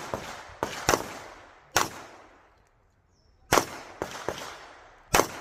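Pistol shots fired one at a time at an uneven pace: five loud reports with echoing tails, with a pause of nearly two seconds in the middle of the string.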